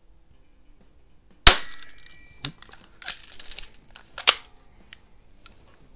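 Healthways Top Score spring-piston BB pistol firing: a single sharp crack with a brief ring about a second and a half in. It is followed by small metallic clicks and rattling as the pistol is cocked again, ending in a loud sharp click a few seconds in.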